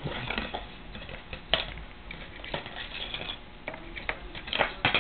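Handling noise as hands unwind a tie wrapped around a new tripod: irregular rustling and light clicks, with a sharp click about a second and a half in and a few louder knocks near the end.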